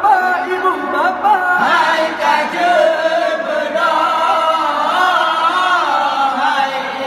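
Voices chanting in a drawn-out, wavering melody: a sung call to wake people for the pre-dawn Ramadan sahur meal.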